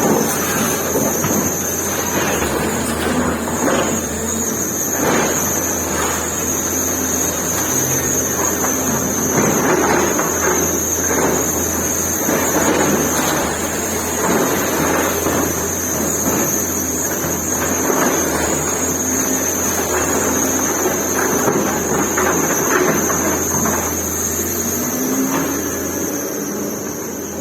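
Excavator's diesel engine running steadily under load, with a steady high whine and repeated irregular knocks and crunches of the bucket working rubble as the building is torn down.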